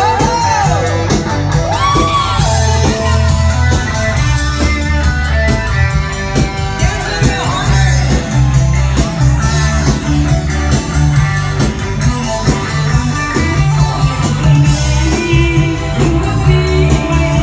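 Live rock-style band playing loudly: electric guitar, drum kit and bass guitar, with singing over it and sliding, bent notes in the first few seconds.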